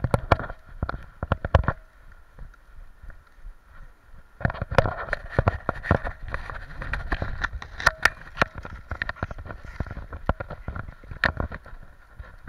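Irregular clicks, knocks and rattles from an action camera mounted on a moving dog's harness, with a quieter stretch of about two seconds near the start before the knocking picks up again.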